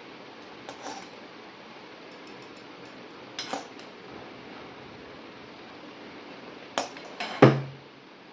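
Metal tongs clinking against a steel pan while noodles are lifted out: a couple of light knocks early, then a cluster of sharper clanks near the end, the last one the loudest with a brief ring.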